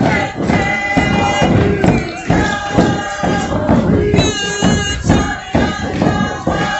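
Music: voices singing with a regular thumping beat.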